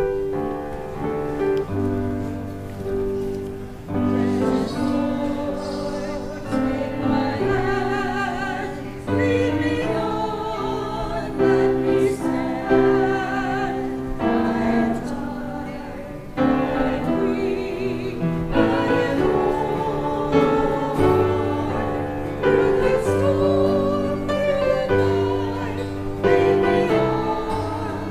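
Church music: singing with keyboard accompaniment, the voices holding long notes with vibrato over a steady bass line.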